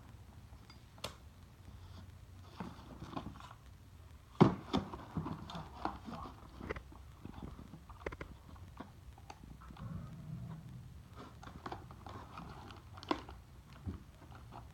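Scattered clicks, taps and knocks of hard parts being handled while fitting the handle onto a 1-inch impact wrench, with the loudest knock about four and a half seconds in.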